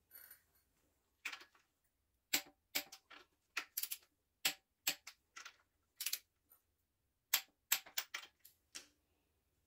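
Torque wrench on the connecting-rod cap nuts of a Chevy 350 small-block, giving sharp, irregular clicks, some in quick pairs or short runs, during a first low-torque pass of 25 to 30 ft-lb.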